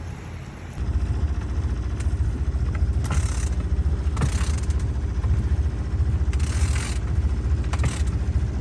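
Sailboat's auxiliary engine cutting in about a second in and then idling with a steady low chug, with a few short hissy bursts over it.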